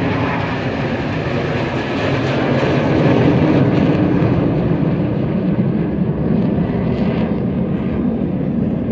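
Military jet aircraft flying past, a loud steady rumble that is loudest about three seconds in, its higher hiss dying away after that as it moves off.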